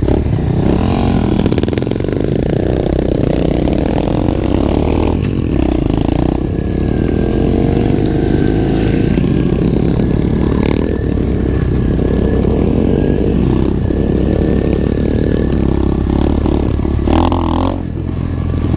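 SSR 125 pit bike's single-cylinder four-stroke engine running steadily under way on a dirt trail, heard close up from the bike, with a brief drop in level near the end.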